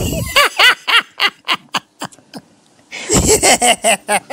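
A woman laughing in rapid, repeated bursts. She stops for about a second, then breaks into laughter again.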